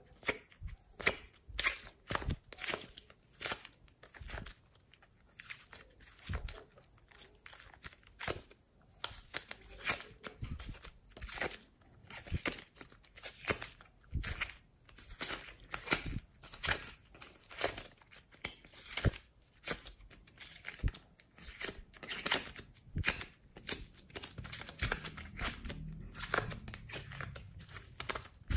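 Soft coloured clay being peeled and pulled out of a clear plastic mould by hand, giving a run of irregular sticky crackles and tearing sounds, several a second.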